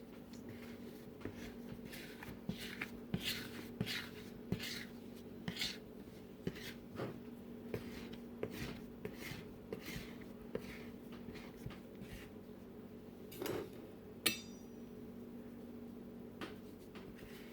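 Hands folding and pressing bread dough flat on a floured counter: a run of soft brushing and patting sounds, over a steady low hum. About 14 seconds in, a single sharp clink with a short metallic ring.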